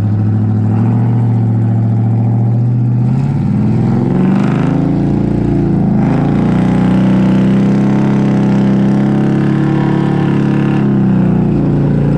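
Vehicle engine running loudly, revving up about three seconds in, holding at higher revs, then dropping back near the end.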